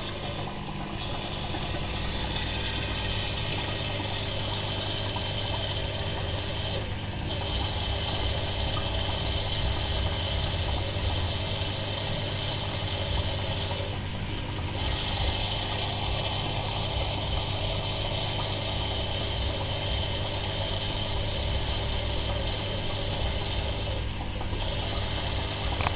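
Steady electric hum of running aquarium equipment, with a constant hiss over it that dips briefly a few times.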